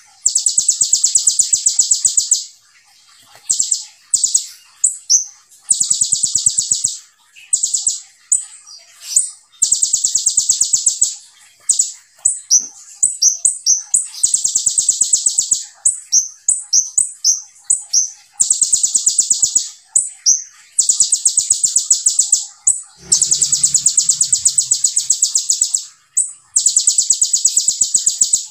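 Male purple-throated sunbird (kolibri ninja) in full song. It gives long, high, tightly spaced rapid trills of about two seconds each, again and again, with short chirping notes between them.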